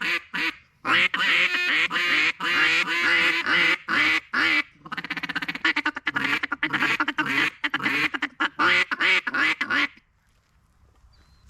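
Wyatt's Waterfowl Co Mallardo, a double-reed hen mallard duck call, blown in a string of quacks: several long loud quacks, then from about five seconds in a faster run of shorter quacks. It stops about ten seconds in.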